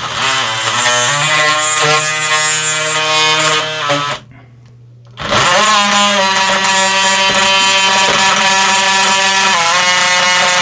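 Cordless drill running, its bit raking wood out of the door jamb to clear a pocket for the latch and strike plate. The motor speed wavers under load, stops for about a second a little before the middle, then spins back up and runs steadily.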